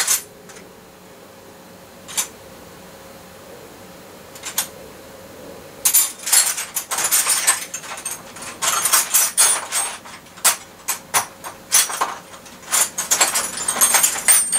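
Metal spanners and sockets clinking and rattling as a hand rummages through a tool tray. A few separate clinks in the first seconds, then a busy, continuous run of clinks from about six seconds in.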